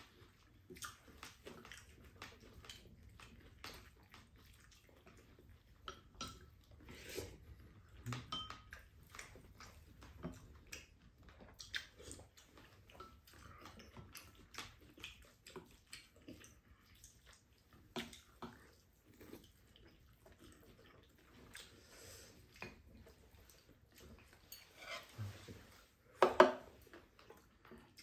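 Quiet eating sounds: chopsticks and spoons clicking and scraping against ceramic bowls, scattered irregularly, with one louder knock near the end.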